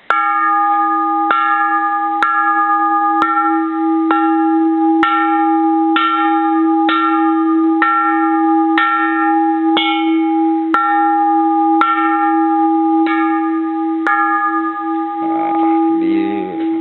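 Bronze Japanese Buddhist temple bell struck about once a second, some fifteen times in a row. Each sharp hit sets off a long ring, a deep steady tone under higher overtones, that carries on between the strikes.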